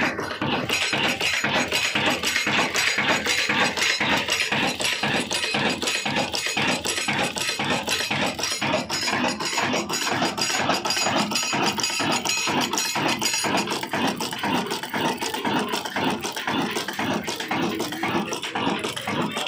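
Large old horizontal stationary diesel engine running, with a fast, even mechanical clatter.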